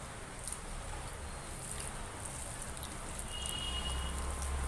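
Close-up wet chewing and mouth sounds of eating rice and dal by hand, with small clicks and smacks. Near the end, fingers squish and mix rice with dal on a steel plate, and a low hum grows louder.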